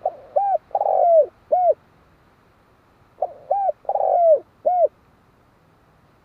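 Spotted dove cooing: two phrases of four notes, about three seconds apart, the third note of each longer and sliding down in pitch.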